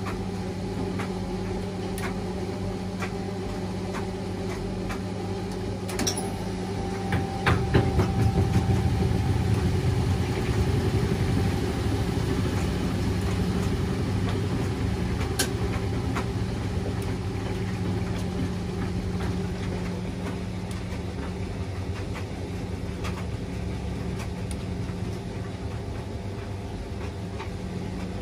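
Washing machine running with a steady motor hum. A couple of sharp clicks come about six to seven seconds in, then a louder low rumble starts as the drum turns harder and slowly eases off.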